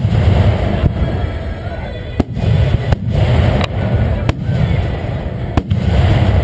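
Aerial fireworks shells bursting overhead: a run of loud, deep rumbling booms with sharp cracks and pops in between, about eight or nine cracks spread across the few seconds.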